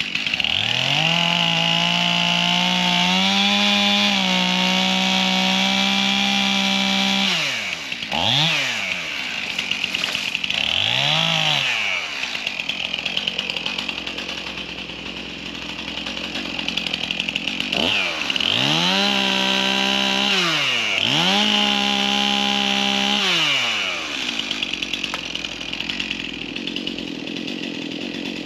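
Two-stroke chainsaw running at full throttle for about seven seconds, dropping to idle with two short revs, then revved hard twice more for a few seconds each before settling back to idle.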